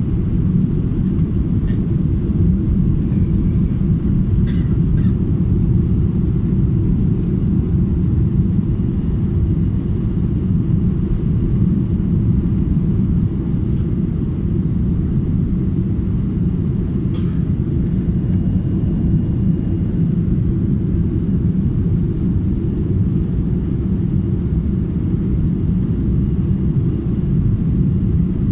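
Steady low rumble of an Airbus A330-300's engines and rushing air, heard from inside the economy cabin as the airliner climbs after takeoff.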